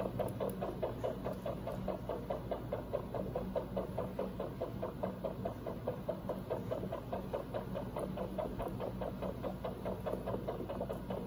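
Anaesthetic heart monitor sounding the anaesthetised hamster's heartbeat as a rapid, even pulse of about five beats a second, over a steady low hum.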